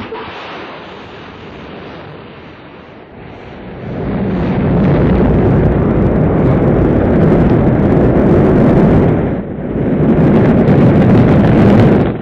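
Rocket launch rumble: the engines ignite with a sudden start, then a loud, deep noise without a tone that grows much louder about four seconds in. It dips briefly near the end, then picks up again.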